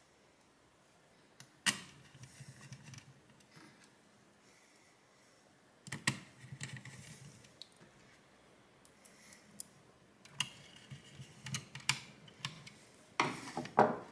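Small screwdriver and tiny screws clicking and tapping against a graphics card's circuit board and metal parts, in a few scattered sharp clicks. Near the end there is a brief rustle of the card being handled.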